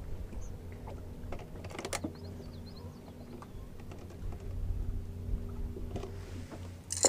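Cal Coast culling system's cull tag clips clicking and clattering as they are handled and hung back on their holder: a few sharp clicks about two seconds in, a few more near six seconds, and a louder rattle near the end, over a steady low hum.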